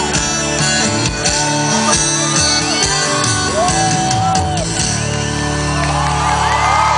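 Live sertanejo band playing the closing bars of a song, the drums stopping about five seconds in and the band holding a final chord. The crowd shouts and whoops over the ending.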